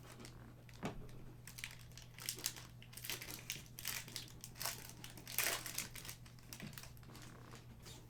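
Crinkling of a trading-card pack's foil wrapper as it is handled and opened, in an irregular run of crackles with a knock about a second in.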